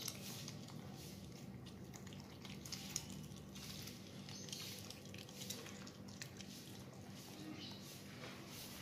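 Otter chewing young coconut flesh: faint wet chewing with many small irregular clicks, one sharper click about three seconds in.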